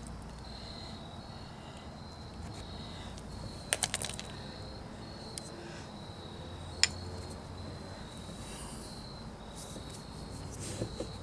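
Small sharp clicks and taps from handling a threaded shift-cable fitting and a tube of RTV sealant: a quick run of clicks about a third of the way in, one sharp click a little past halfway, and a few faint ones near the end. A high chirping trill in short, evenly broken notes goes on steadily under them.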